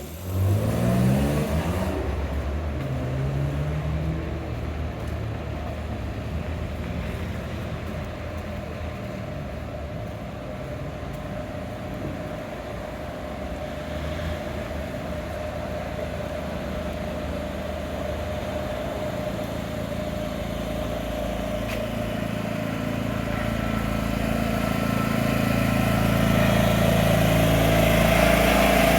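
Street traffic: a vehicle's engine revs up with a rising pitch at the start, then engines run steadily. The sound grows louder near the end as another vehicle draws close.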